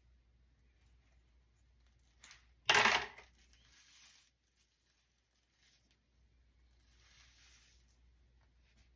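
Large Velcro hair rollers being pulled out of hair: one sharp ripping clack about three seconds in, then soft rustling of the hook-and-loop rollers in the hair.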